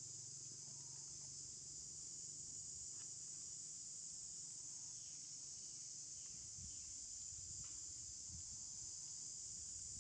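Steady, high-pitched chorus of insects droning in the background, with faint low rustling in the second half.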